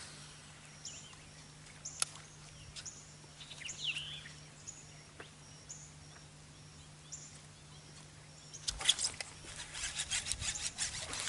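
Birds calling faintly, with short high chirps and a few downward-swooping notes, over a low steady hum. About nine seconds in, a burst of water splashing and sharp clicks as a hooked bass fights on a hard-bent rod.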